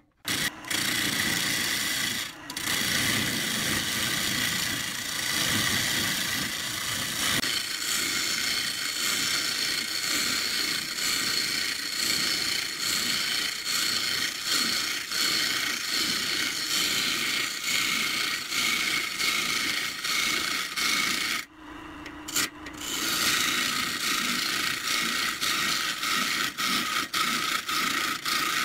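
Gouge cutting into a spinning pine blank on a wood lathe, peeling off long shavings: a loud, steady rough scraping that breaks off briefly twice, once about two seconds in and again about three quarters of the way through.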